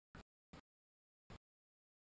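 Near silence, broken by three very faint short clicks.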